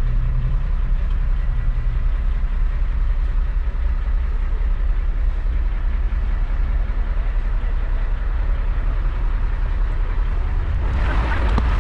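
Truck diesel engine idling steadily, a low rumble heard from inside the cab. Near the end a louder rushing noise joins it.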